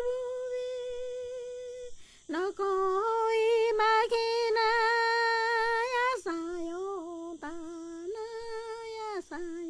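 A woman's voice singing unaccompanied in long held notes with a slight waver, breaking briefly about two seconds in and dropping to a lower note about six seconds in.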